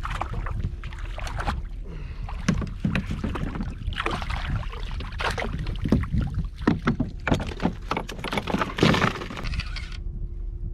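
Sea water slapping and splashing against a Hobie Pro Angler kayak hull in short irregular bursts, busiest in the middle, over a steady low rumble.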